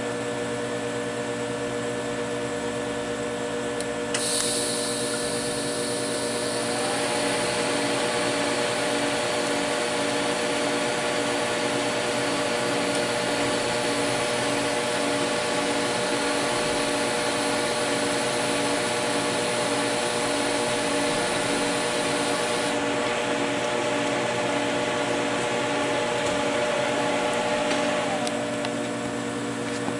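TIG welding a washer onto a 1/2-inch steel shaft: the welding machine hums steadily while the torch tacks the washer, using 309L stainless filler wire. A higher hiss comes in about four seconds in and stops a few seconds before the end, and the overall level drops near the end.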